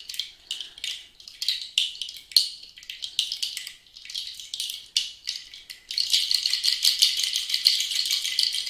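Rattle bracelet shaken by hand: crisp, dry rattling in separate shakes at first, then a denser, louder, continuous shaking from about six seconds in.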